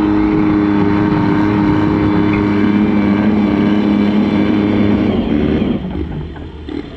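Garden pulling tractor's engine running hard at steady high revs while dragging a stoneboat sled, then throttling back about five and a half seconds in as the pull ends.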